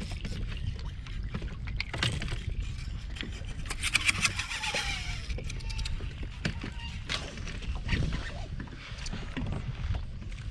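Wind on the microphone and water moving around a kayak, with scattered knocks and clicks and a brief burst of crackly hiss about four seconds in.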